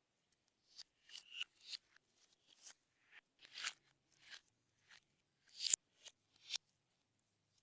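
Slime being mixed and squeezed by hand: a string of short, irregular sticky crackles and pops, the sharpest one about three quarters of the way through.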